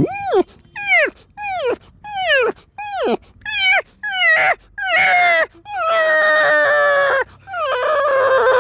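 A man's vocal imitation of a small puppy whimpering in the cold: about eight short whimpers, each falling in pitch, roughly one every two-thirds of a second, then two longer drawn-out whines near the end.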